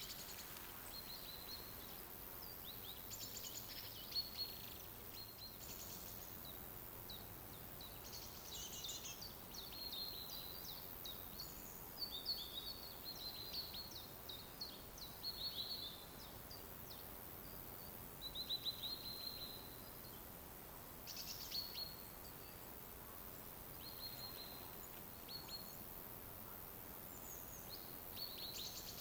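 Songbirds chirping and twittering in short, repeated phrases, with a few brief pauses, over a faint steady hiss of forest ambience.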